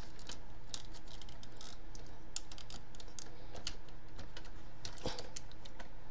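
Irregular small clicks and taps of plastic toy parts as a third-party MP-10 Optimus Prime transforming figure is handled and its arm and cab pieces are moved by hand.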